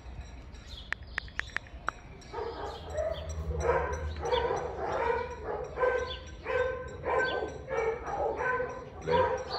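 A dog barking over and over, about two barks a second, starting a little over two seconds in. Just before that, a few sharp taps like a phone's keyboard clicks.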